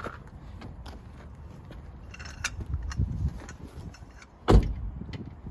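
Metal clicks and knocks from hand tools working a seized brake caliper bolt, with a low rumble near the middle and one loud sharp clank about four and a half seconds in.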